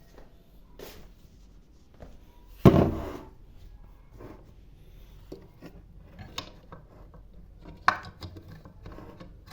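Kitchen handling noises: a loud knock with a short ring-out nearly three seconds in, a sharp knock near the eighth second, and scattered lighter clicks and clatter between them, as of things being set down or moved on a counter.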